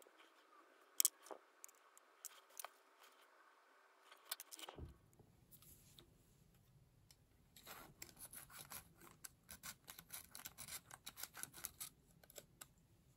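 Steel pick scraping hardened remnants of an old rubber ink sac from inside a Montblanc 322 fountain pen barrel: a quick run of small scratches and clicks, densest in the second half, after a few scattered sharp clicks of metal tools on the pen in the first half.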